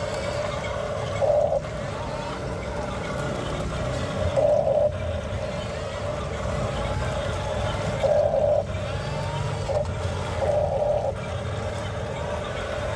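Small electric motor of a radio-controlled model truck whining steadily, with four short louder spurts as it is driven harder.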